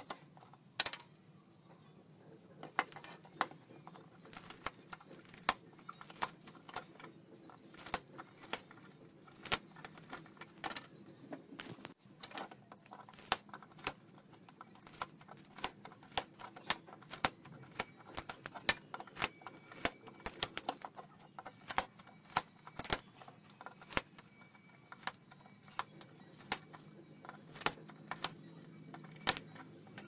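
Scissor-type cutters snipping through the old copper windings of a ceiling fan stator, a sharp click with each cut, irregular at about one or two a second.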